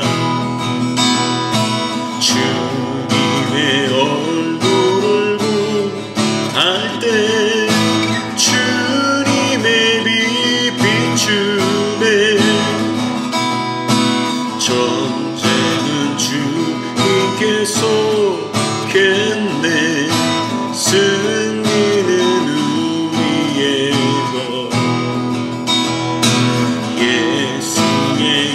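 A worship song played on strummed acoustic guitar, with a wavering melody line over the chords.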